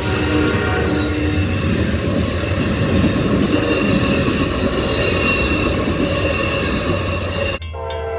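A train rolling past with a steady rumble and squealing wheels. Near the end the sound cuts suddenly to a train horn sounding a steady chord.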